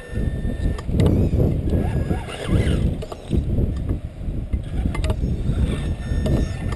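Wind buffeting the microphone in loud, gusty rumbles. Under it, a faint thin whine and a few clicks from the Axial Wraith radio-controlled rock crawler's 27-turn brushed motor and drivetrain as it crawls over rock.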